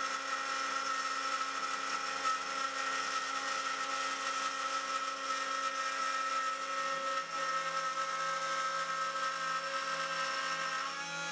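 Router spindle on a WorkBee CNC machine milling aluminium with a small end mill: a steady high whine over the hiss of the cut.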